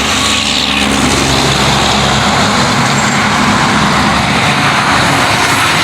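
Loud, steady road-traffic noise from a motor vehicle running close by.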